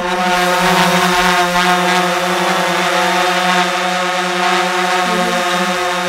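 A swarm of killer bees buzzing in a dense, steady drone.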